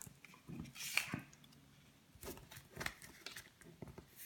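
Pokémon trading cards and a foil booster-pack wrapper being handled at close range: scattered crinkles, taps and rustles, with the loudest crinkle about a second in.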